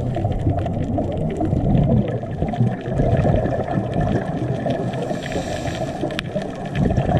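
Underwater sound heard through a dive camera's housing: the rumbling gurgle of a scuba diver's exhaled bubbles, with a brief hiss about five seconds in and scattered faint clicks.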